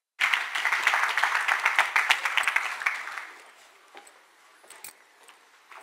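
Audience applauding, dying away about three seconds in.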